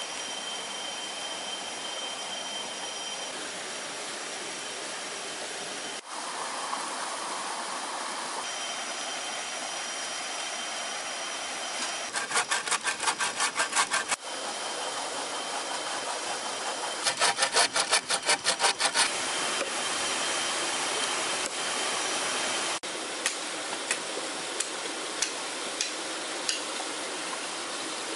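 Folding pruning saw cutting through a wooden log in two bursts of quick back-and-forth strokes, about four a second. Near the end, a machete chopping at a branch, with sharp knocks about once a second.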